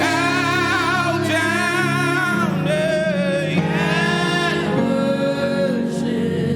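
Gospel praise and worship music: a vocalist singing a long, wavering melody over sustained keyboard chords, with the harmony changing about two and a half seconds in.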